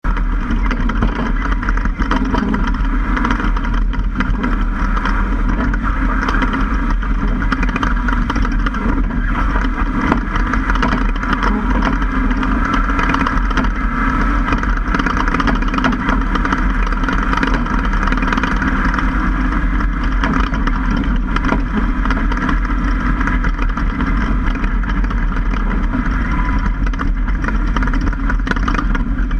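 Ford F-150 prerunner driving over a rough dirt trail, heard from a camera mounted above the right front wheel: a steady, loud mix of engine, tyres on dirt and wind, with frequent small knocks.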